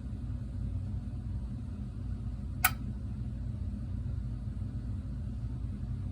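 A single sharp click about two and a half seconds in, over a steady low hum: the CD&F siren controller being switched between its steady and attack signals.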